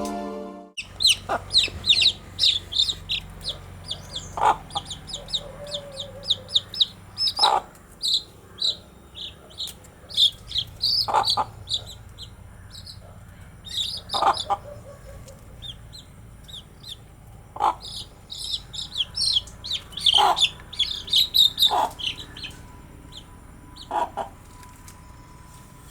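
Baby chicks peeping in quick runs of short high-pitched notes, with a hen's short lower clucks every two to three seconds.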